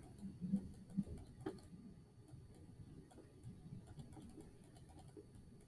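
Faint taps and ticks of a stylus writing on a touchscreen, with a few firmer taps in the first couple of seconds and lighter ones after.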